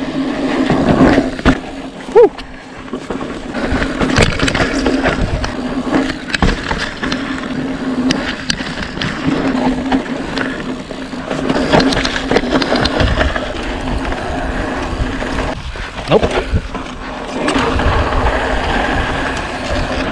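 Electric-assist mountain bike ridden down a dirt trail: tyres rolling on dirt and the bike rattling over bumps with many sharp knocks, over a steady hum from the CYC Photon mid-drive motor. A loud knock comes about two seconds in, and brief rising tones sound then and again near the end.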